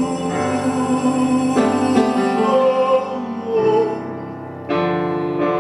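Piano playing slow, sustained chords: a new chord comes in about a second and a half in, the sound dies away, and another chord is struck near the end.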